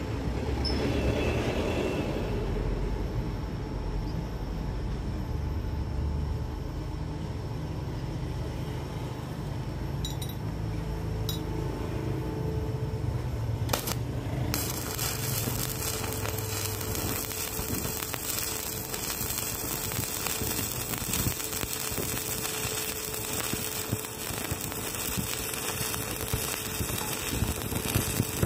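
Stick (arc) welding on steel: about halfway in, the arc strikes and crackles and sizzles steadily to the end. Before it there is a low rumble with a few light clinks.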